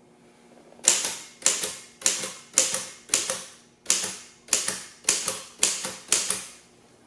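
1908 Yetman Morse code transmitting typewriter being typed on: about ten keystrokes, roughly two a second with a short pause halfway, each a sharp clack that trails off briefly. Each keystroke prints a letter and sets the machine's clockwork code roller sending that letter as Morse code.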